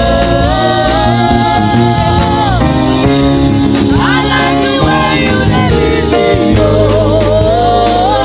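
Gospel praise song: a voice singing long held notes with vibrato over a steady band accompaniment.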